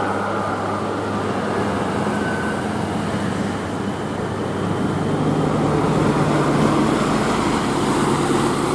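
Bus engine running amid road traffic noise, a steady low hum that settles to a slightly lower pitch about four to five seconds in.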